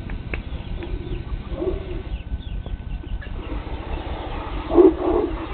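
Chickens clucking: a few short, low clucks, with a louder pair near the end, over a steady low rumble.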